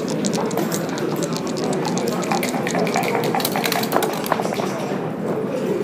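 Continuous clatter of many small clicks from backgammon checkers and dice being played, over a low murmur of voices.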